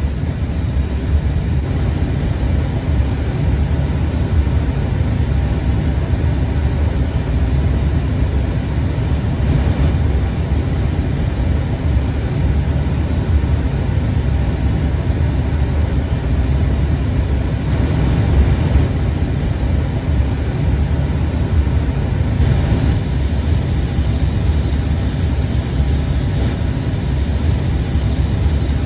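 Airbus A320 flight deck in flight on approach: a steady low rumble of airflow and engine noise.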